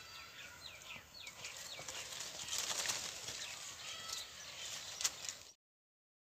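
Outdoor ambience of small birds making quick, high, falling chirps over a thin wavering whistle, with rustling of leaves in the shrubs. The sound cuts off abruptly into dead silence about five and a half seconds in.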